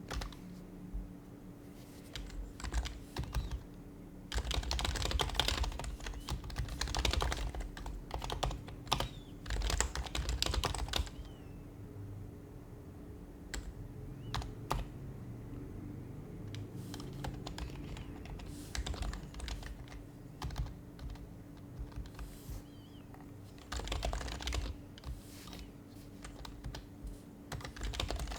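Typing on an HHKB Professional HYBRID Type-S keyboard, its silenced Topre keys giving soft, muted clacks: fast runs of keystrokes with pauses and scattered single presses between. A faint steady hum lies underneath.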